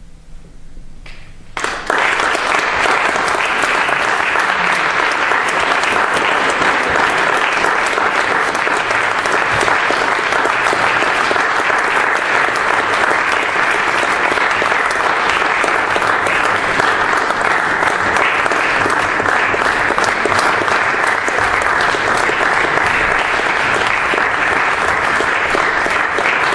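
Audience applauding. After a brief hush, the clapping breaks out suddenly about a second and a half in and then keeps up steadily.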